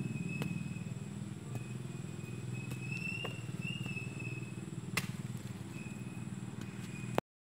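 A small engine runs steadily with a low, evenly pulsing drone, under a thin high wavering tone. A few sharp clicks come through, the loudest about five seconds in, and the sound cuts off suddenly near the end.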